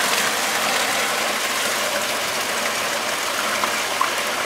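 Electric pool pump of a sand filter running steadily on backwash, with water rushing through the filter and out of the waste hose; a steady even whir and rush.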